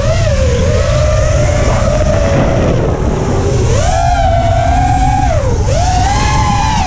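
Demon RC Aura FPV quadcopter's motors and propellers whining, the pitch swinging up and down with the throttle as it banks and dives. Underneath is a steady low rumble.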